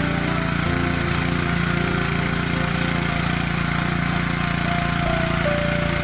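Honda GX160 single-cylinder four-stroke petrol engine of a Tasco BK 55H mini tiller running steadily.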